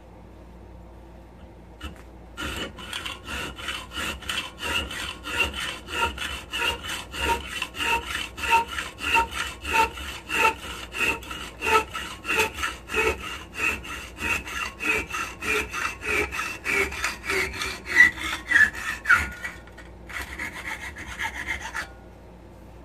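Hand hacksaw cutting 5/16-18 steel all-thread rod held between wooden blocks in a vise, about two to three rhythmic strokes a second until the rod is cut through. A short, softer scrape follows near the end.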